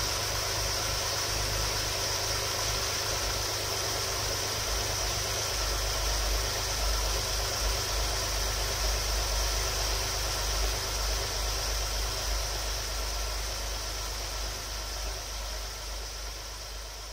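Alfa Romeo 166's 3.0 V6 Busso engine idling steadily just after a rebuild, growing quieter over the last few seconds.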